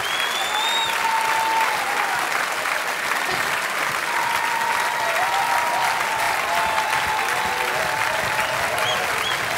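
Large theatre audience applauding steadily, with a few cheers and whistles rising over the clapping.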